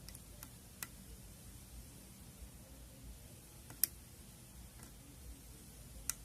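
Faint, scattered sharp clicks of a hook pick and tension wrench working the pin tumblers inside a padlock's six-pin core, the loudest just under four seconds in and another near the end.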